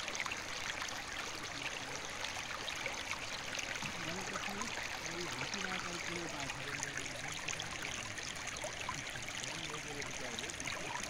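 Shallow, muddy stream rushing steadily over cobbles and rocks.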